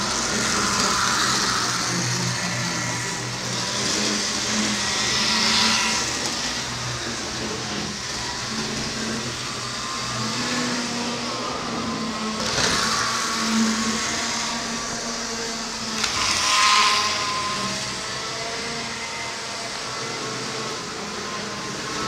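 HO-scale model train running on the layout: a steady mechanical hum and whine, with three short hissing surges, about five, twelve and sixteen seconds in.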